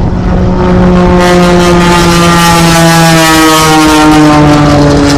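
A 400-horsepower aerobatic propeller plane's engine and propeller running hard in flight, its pitch falling slowly as it passes.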